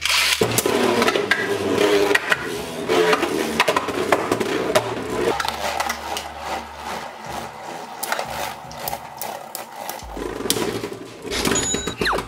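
Two Beyblade Burst spinning tops, Infinite Achilles and Super Ragnaruk, launched into a plastic stadium, spinning and scraping across the floor with many sharp clashes as they hit each other and the stadium walls.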